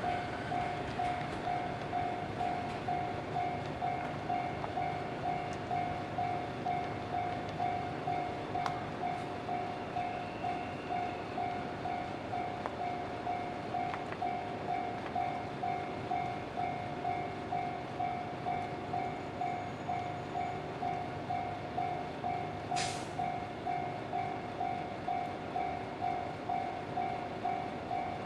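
Japanese level-crossing warning bell ringing: one electronic tone repeated steadily about twice a second. A brief high squeak sounds once, near the end.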